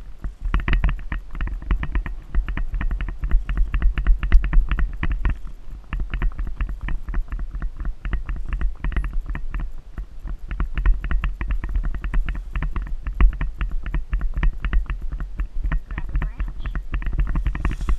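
Fast, continual knocking and rattling from riding an Icelandic horse at a quick gait along a sandy trail, heard from a rider-worn camera, over a low rumble.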